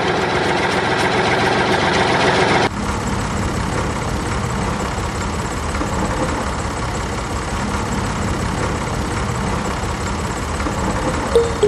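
Small motor in a homemade model tractor running steadily with a fast, even rattle; the sound changes abruptly about two and a half seconds in, then runs on evenly.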